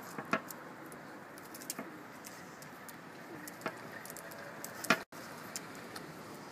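Dogs' claws clicking and tapping on paving stones and a steel checker-plate cover: a handful of sharp clicks, the loudest near the end, over a steady outdoor hiss of distant traffic.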